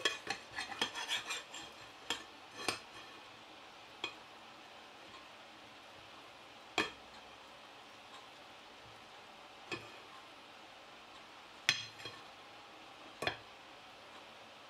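The crisp, sesame-topped crust of a baked spinach börek crackling as it is cut and pulled apart, with a metal cake server scraping and tapping against the glass baking dish. A quick run of crackles comes first, then single sharp scrapes and taps every second or two.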